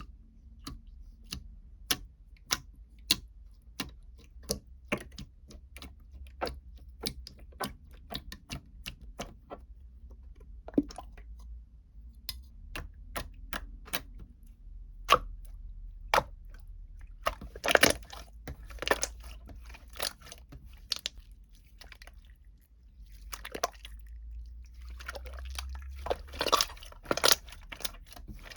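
Irregular sharp clicks and taps, about one a second at first, with louder clusters of clatter about two-thirds of the way through and again near the end, over a low steady hum.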